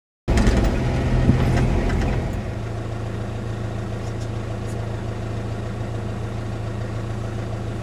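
Vehicle engine running, heard from inside the cabin. It cuts in abruptly, is louder for about the first two seconds, then settles to a steady low hum.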